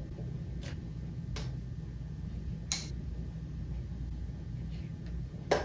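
A few separate light clicks and taps from a coffee scoop and the lid of a drip coffee maker as ground coffee is scooped into the filter basket, the sharpest click near the end, over a steady low hum.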